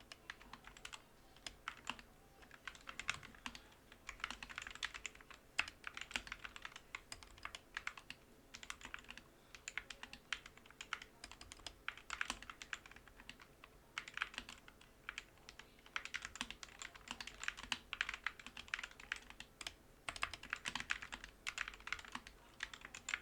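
Typing on a mechanical keyboard with lubed Gateron Yellow linear switches and PBT keycaps: a fast, continuous run of keystrokes broken by a few brief lulls.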